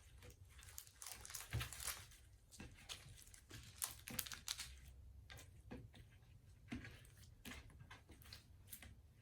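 Faint, irregular crinkling and soft clicks from hands working slime and a small plastic packet of add-ins.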